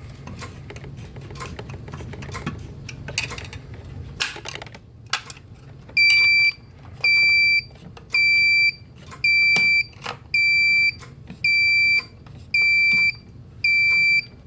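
Clicks and knocks from a fire alarm pull station being reset and handled. About six seconds in, the Siemens XLS fire alarm panel's built-in buzzer starts beeping, a high steady beep about once a second, signalling that alarms have come in on the panel.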